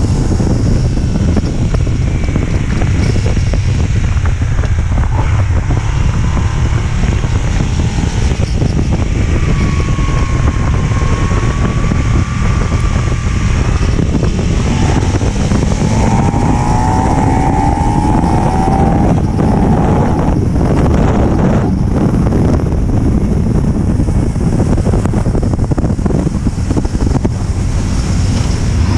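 Wind rushing over the onboard microphone of a moving Aprilia Tuono motorcycle, steady throughout, with the bike's engine running underneath.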